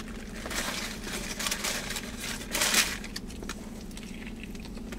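Sandwich paper wrapper crinkling and rustling in irregular bursts as it is handled and pulled back from a sub, loudest about two and a half seconds in, then quieter.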